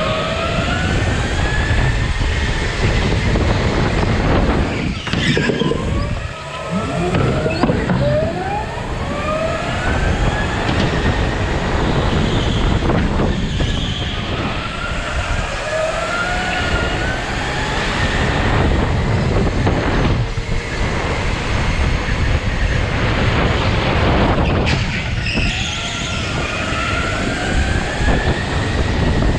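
Onboard go-kart motor whining, its pitch rising as the kart accelerates and dropping off into the turns, over and over, over a steady rumble of tyres and wind.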